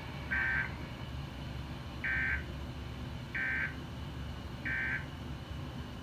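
Emergency Alert System end-of-message data bursts played through a TV speaker: four short, buzzy two-tone digital chirps, roughly a second and a half apart, marking the close of the monthly test.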